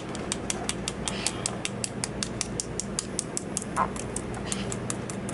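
Metal forceps picking and tapping at the calcified shell of a Cuvier's dwarf caiman egg: a quick run of light clicks, about five a second.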